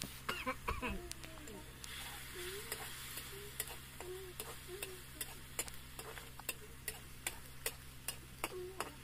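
A metal ladle stirs and scrapes in a small steel wok over a steady light sizzle of frying in oil. The ladle clinks sharply against the pan about twice a second.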